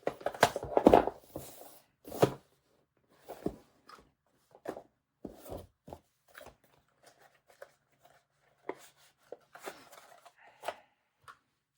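Hands handling small hard items: an irregular string of clicks, taps and rustles, densest in the first two seconds and thinning to single sharp ticks.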